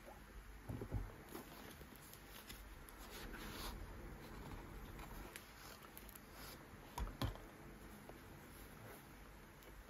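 Faint handling of a cardboard product box: paper sleeve rustling and sliding against the box, with a soft knock about a second in and two more knocks close together around seven seconds in as the box is set down and moved.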